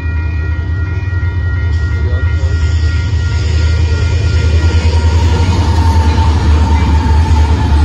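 Union Pacific diesel freight train approaching and reaching the grade crossing, its rumble and wheel-on-rail noise growing steadily louder as the locomotive arrives. A crossing warning bell's steady ringing tones are heard early on and fade under the train noise.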